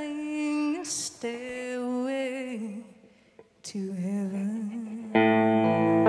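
A woman's voice sings long held notes with vibrato, breaking off for a moment midway. About five seconds in, an electric guitar comes in with a loud, sustained chord.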